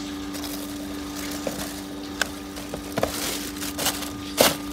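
Plastic food packaging rustling and crackling in short clicks as it is pushed around in a bin, the loudest crackle near the end, over a steady low hum.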